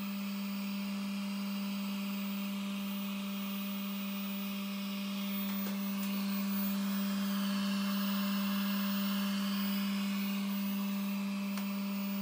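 xBot 3D printer running a print: a steady low hum under a hiss of fans. Higher motor whines rise and fall as the print head moves, plainer in the second half.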